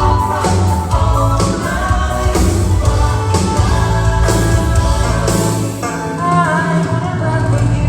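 Pop music with singing, played by a band at a sound check, over a steady beat.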